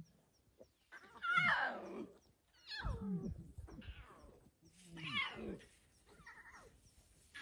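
Lion cubs calling: four high, mewing calls, each falling in pitch, spread through a few seconds.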